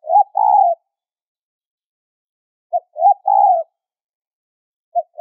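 Spotted dove cooing: a phrase of two short notes and a longer final note, repeated about every two and a half seconds, one phrase ending as it begins, one about three seconds in and the next starting at the very end. A high-pitched call of the kind used as a lure to draw wild spotted doves.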